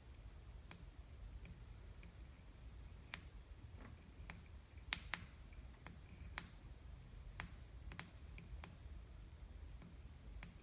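Faint, irregular sharp clicks and snaps of small sparks arcing where 9-volt battery leads touch the coil wires of a small dishwasher electric motor, the contact making and breaking.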